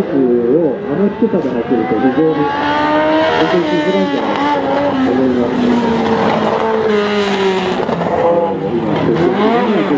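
Fournier Marcadier Barquette FM01 kit car's engine revving hard and easing off again and again as it weaves through a tight cone course, the pitch climbing under throttle and falling on the lift, with a long slow drop through the middle and quick blips near the end.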